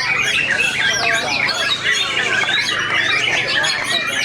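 Many caged white-rumped shamas (murai batu) singing at once at a songbird contest: a dense, unbroken tangle of overlapping whistles, fast rising and falling phrases and chirps.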